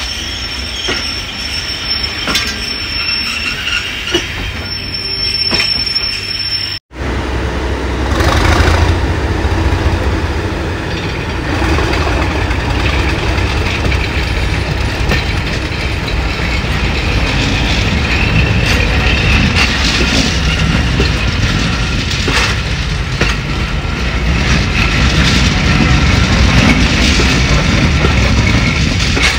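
Coaches rolling on the rails with wheel and rail noise. After a short break, a Class 37 diesel locomotive's English Electric V12 engine working hard at the head of the train, heard from an open coach window, with wheels clicking over the rail joints.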